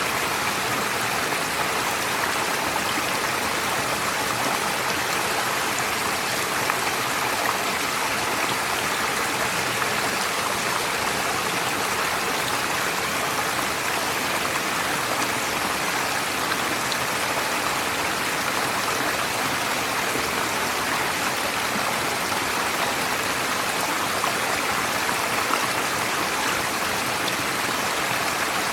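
Forest stream flowing over stones: a steady, even rush and babble of water.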